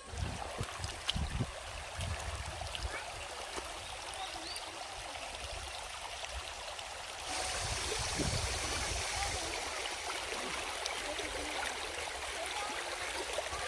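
Valley stream rushing and splashing over rocks as a steady wash of water noise, which gets louder and brighter about seven seconds in. A few low rumbles sound in the first couple of seconds.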